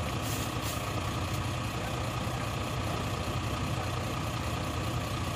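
Heavy three-axle dump truck's diesel engine running steadily at low revs while the truck creeps along, a deep even rumble.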